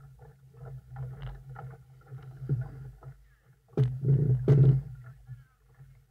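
Water slapping and sloshing against a small boat's hull close to the microphone, in uneven washes, with a louder splashing stretch about four seconds in.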